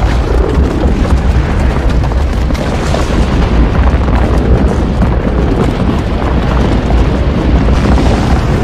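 Volcanic fissure eruption with lava fountaining from an open crack: a loud, steady, deep rumble with a rushing hiss over it.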